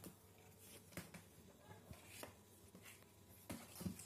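Faint scuffling and light taps of kittens' paws and claws scrabbling on a cardboard box as they play-fight, with a few sharper knocks near the end.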